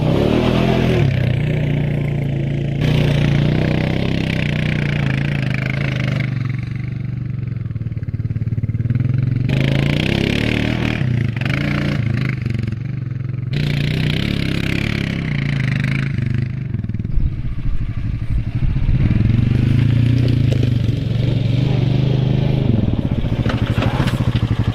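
Honda quad bike's single-cylinder four-stroke engine working up and down a steep grass hill in four-wheel drive, its pitch rising and falling as the throttle is opened and eased. In the last few seconds it runs close by with a rapid low pulsing.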